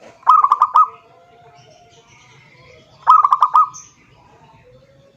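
Zebra dove (perkutut) cooing: two short phrases of quick, staccato coo notes about three seconds apart, the call a male uses to challenge a rival.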